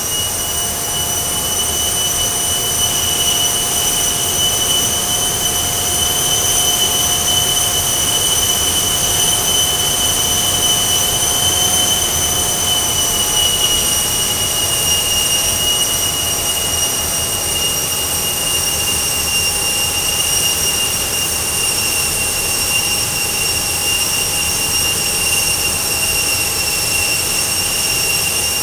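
Price Induction DGEN 380 geared turbofan running: a steady high-pitched whine made of several tones over a rushing noise. It rises slightly in pitch and loudness in the first few seconds as the engine comes up from about 80% to full core speed, then holds steady at full power.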